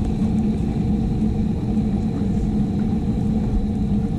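Motorised rotisserie spit turning a whole goat carcass: a steady mechanical hum over a low rumble.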